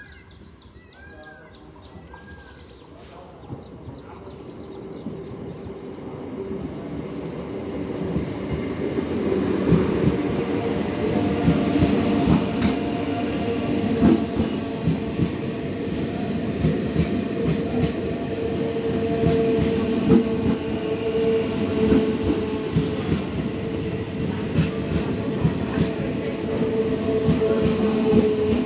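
A train coming in on the railway line, growing louder over the first ten seconds and then running past steadily. Its wheels clatter over the rail joints and a steady tone runs through it. Repeated bird calls are heard in the first couple of seconds, before the train builds up.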